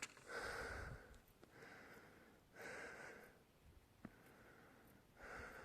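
A hiker breathing hard while climbing a steep slope, a steady in-and-out rhythm of about one breath every second and a half, with a few light clicks.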